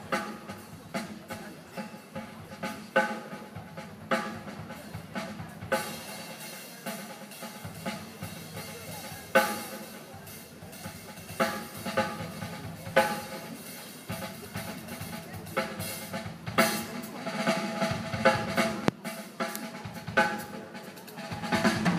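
Live drum kit solo: a steady run of strokes with loud accents at uneven intervals, the drums ringing between hits. The playing grows louder and heavier near the end.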